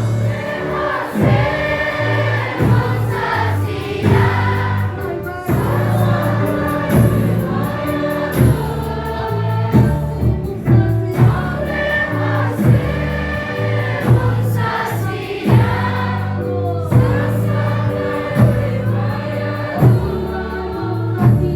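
Gospel song: a choir singing held notes over a steady bass and regular beat.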